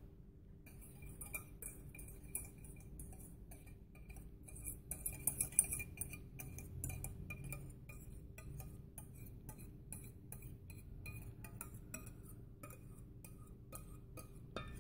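A utensil scraping and tapping against a glass bowl while thick soup is poured out onto a plate: a long run of small clinks, many with a faint glassy ring, busiest and loudest about five to six seconds in.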